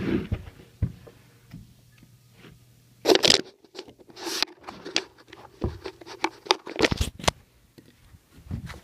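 Camera handling noise as the camera is picked up and moved: irregular knocks, rubbing and rustles, loudest about three seconds in and again around seven seconds, over a faint low hum.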